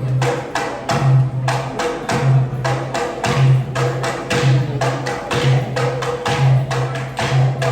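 Percussion music with an even beat: a low drum thump about once a second and sharp wooden clicks between the beats.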